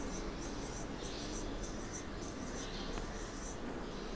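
A marker drawing a row of small circles on a whiteboard: a run of short, high scratchy strokes of the felt tip on the board, about two a second.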